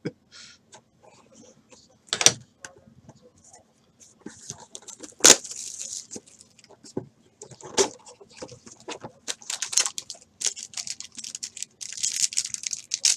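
Plastic wrapping on a box of trading cards being handled and torn open: crinkling and rustling with scattered clicks and taps, three louder snaps spread through it, and a busier stretch of crinkling near the end.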